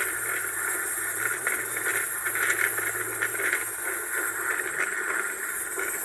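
Marine One helicopter hovering low: its turbine engines give a steady high whine over the even rushing noise of the rotors and downwash.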